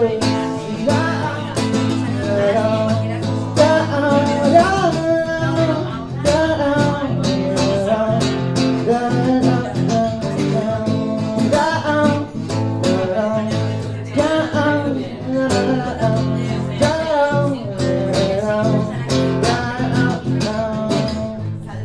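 Live music: an acoustic guitar being strummed under a held, bending sung melody with no clear words.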